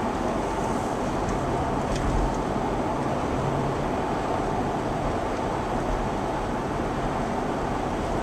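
Steady road noise inside a moving car: tyres on the pavement, with the engine running underneath.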